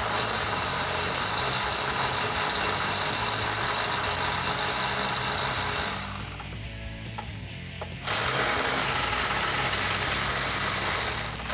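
Cordless electric ratchet with an 18 mm deep socket spinning nuts off bumper-mounting studs. It makes a long run of about six seconds, a pause with a few clicks, then a second run of about three seconds.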